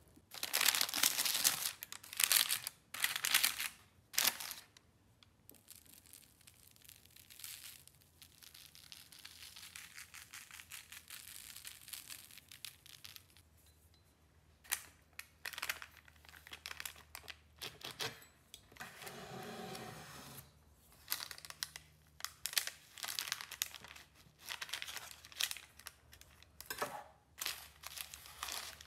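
Parchment baking paper crinkling and rustling in repeated short bursts as it is handled, loudest in the first few seconds.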